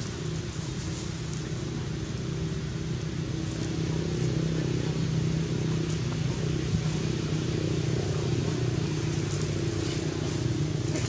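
Steady drone of an engine running, getting a little louder about four seconds in.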